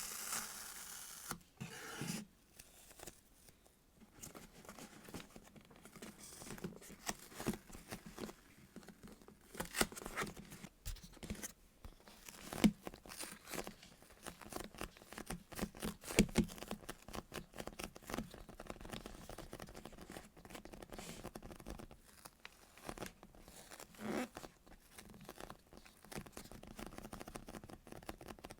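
Squishy toys squeezed and handled close to the microphone: an irregular run of soft crackles, rustles and small clicks, with a few sharper clicks around the middle.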